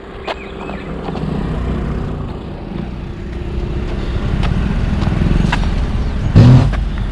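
Road vehicle noise on a highway, engine and tyre rumble growing steadily louder as it approaches, with a brief louder knock near the end.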